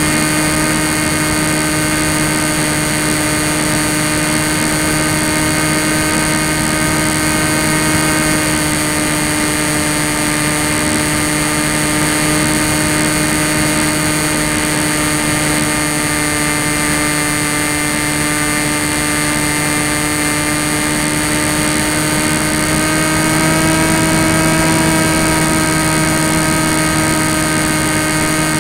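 Tek Sumo foam flying wing's brushless electric motor and propeller, heard from onboard in flight: a steady drone with a high whine over rushing air. Pitch and loudness rise a little for a couple of seconds late on.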